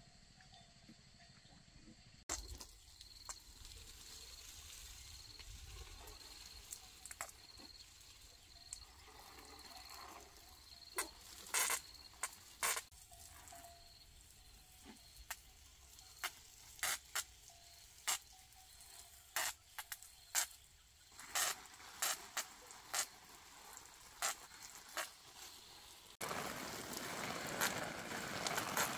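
Garden hose watering vegetable beds: scattered sharp pattering taps of water on leaves, changing near the end to a louder, steady hiss of spray close by.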